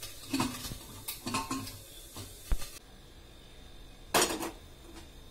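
A metal fork clinking and scraping against a plate of noodles several times, then, a little after four seconds in, a heavy cast-iron kadai clanking down onto the gas stove's pan support.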